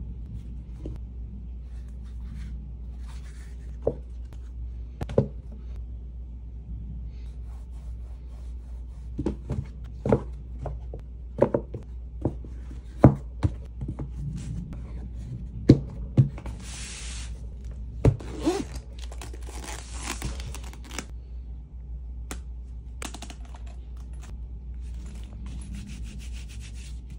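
Hands handling a jewelry case's inner trays: light knocks and clicks as velvet-lined plastic trays are lifted out and set back into place, with rubbing and scraping between them. The knocks bunch together through the middle, and a few longer scraping rustles follow over the case's lining and leather.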